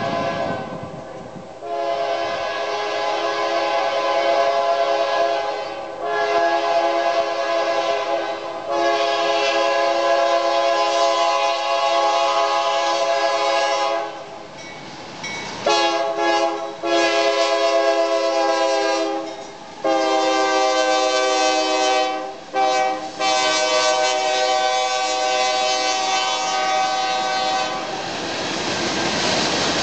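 Diesel freight locomotive's multi-note air horn sounding a string of long blasts with a few short ones between them as the coal train approaches. Near the end the horn stops and the steady noise of the passing train takes over.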